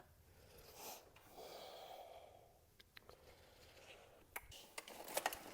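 Near silence, with a faint exhale about a second and a half in, then a few small clicks near the end.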